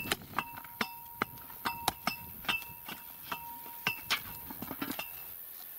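Irregular sharp metallic clinks, about two or three a second, some leaving a short ringing tone: stones going into a post hole and striking the steel post and a metal bucket as the hole is backfilled around the post.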